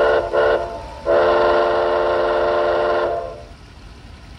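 Steam whistle of a Bachmann Spectrum 2-6-0 large-scale model locomotive, a Soundtraxx sound-decoder sample played through the engine's onboard speaker: two short toots, then one long blast of about two seconds that fades out.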